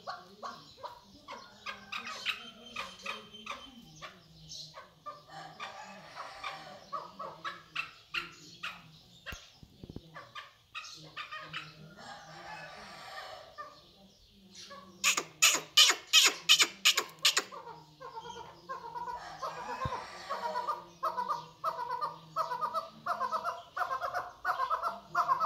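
Partridge calling with series of short repeated clucking notes. About two-thirds of the way through comes the loudest part, a run of about eight sharp, evenly spaced notes, followed by a fast, steady chuckling series.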